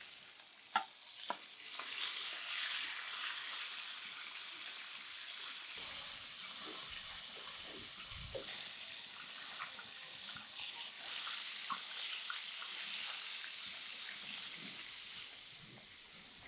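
Chicken frying in a pan pressed under a weighted lid, a steady sizzle with small scattered crackles. A couple of sharp metallic clicks sound about a second in.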